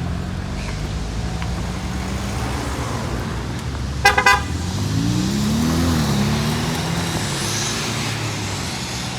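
A sports car's engine running low and steady, revving up and back down once. A brief car horn toot sounds about four seconds in.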